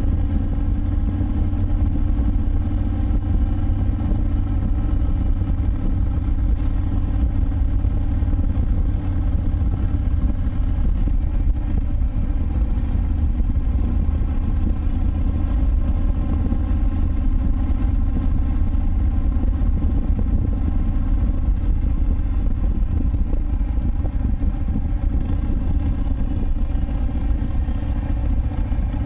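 2019 Harley-Davidson Breakout 114 (FXBRS), its Milwaukee-Eight 114 V-twin running through a Vance & Hines Big Radius exhaust, cruising at a steady speed with an even, unchanging engine note.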